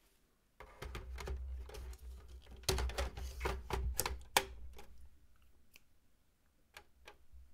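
Plastic drive tray carrying a 3.5-inch hard drive being slid into a Synology DS920+ NAS bay: a quick run of clicks and knocks over a low handling rumble for about four seconds, with the sharpest click near the end of the run, then a few faint ticks.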